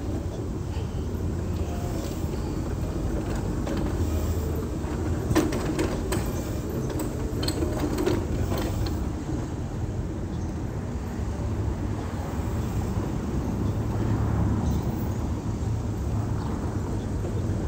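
Wheelchair rolling along a paved sidewalk: a steady low rumble of wheels on pavement, with a cluster of clicks and rattles about five to eight seconds in.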